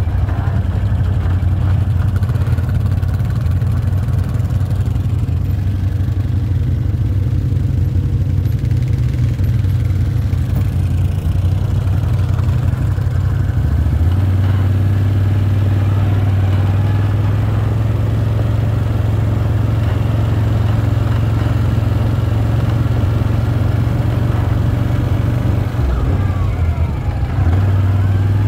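ATV (quad bike) engine running steadily while riding. The engine note changes about halfway through and dips briefly near the end.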